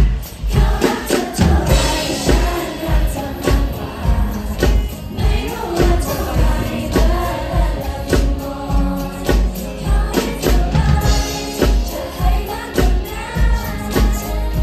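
T-pop girl group performing on stage through a PA: female vocals over a heavy, steady kick-drum beat.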